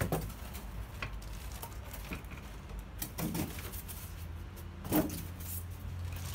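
Unpacking noises: polystyrene foam packing pulled away and tossed down, and the plastic bag around the machine handled, giving a few short rustles and knocks, the loudest about five seconds in, over a steady low rumble.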